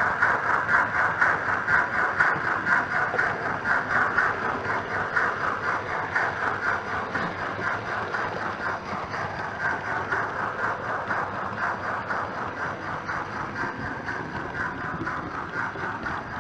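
Hornby Britannia model locomotive's DCC sound decoder playing steam-locomotive exhaust chuffs through its small speaker at a quick, even beat, slowly growing quieter.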